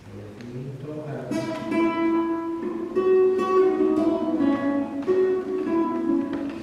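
Classical guitar playing a short passage of plucked notes, each one ringing on, starting about a second in.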